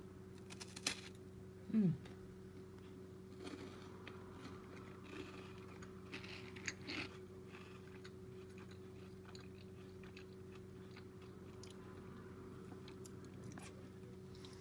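Someone chewing a crunchy piece of toasted bread topped with chicken salad: scattered small crunches and clicks. About two seconds in, the loudest sound is a short one that drops in pitch, over a steady faint hum.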